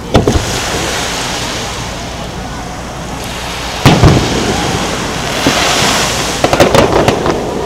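Aerial firework shells going off over the water: a boom just after the start and a louder bang about four seconds in, then a quick run of sharp cracks near the end.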